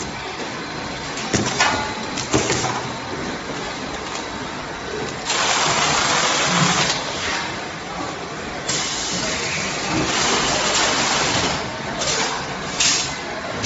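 Wet-wipes production machinery running with a steady mechanical clatter and a few sharp clicks in the first seconds. A loud hiss starts about five seconds in and lasts about three seconds, and shorter hisses come near the end.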